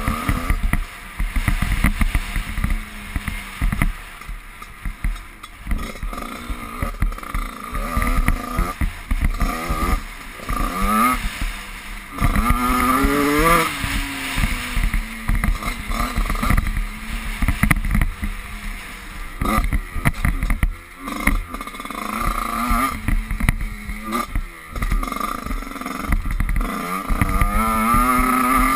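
Motocross bike engine revving up and down as it is ridden round a dirt track, pitch climbing as it accelerates and dropping off between climbs, with wind buffeting the microphone.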